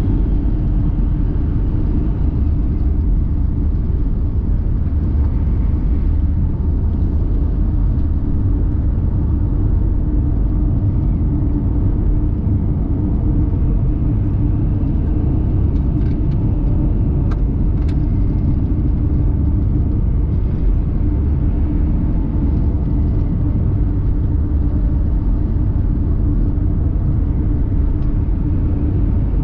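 Car driving at a steady speed: a continuous low rumble of road and engine noise with a steady hum over it.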